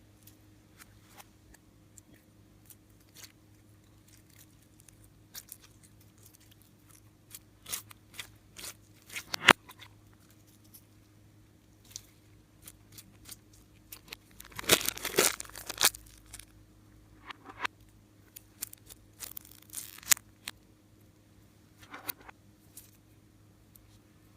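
Slime being handled: scattered small crackles and clicks, with a louder stretch of crackling about fifteen seconds in and another around twenty seconds.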